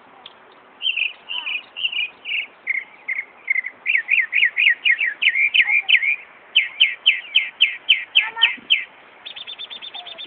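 Northern mockingbird singing a string of repeated short whistled phrases, switching to a new phrase type every second or two, in mimicry of a car alarm's cycling tones. Near the end it changes to a fast, even, buzzy trill.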